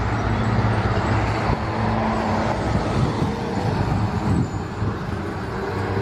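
Heavy diesel mobile crane truck on a KAMAZ chassis driving along a road: a steady low engine drone with tyre and road noise.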